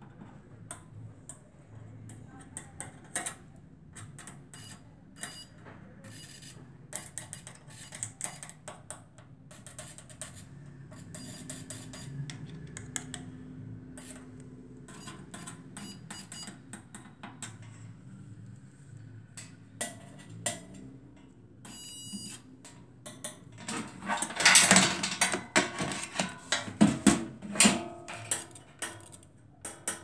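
Metal multimeter probe tips tapping and scraping on a microwave oven's sheet-metal cabinet and chassis during a continuity check of its paint, giving irregular clicks and scratches. The clatter is loudest a few seconds from the end. A short, high electronic beep sounds at about twenty-two seconds.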